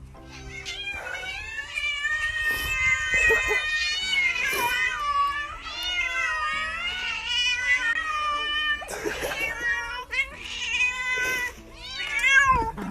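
Cat yowling in long, drawn-out, wavering calls, one after another with only short breaks.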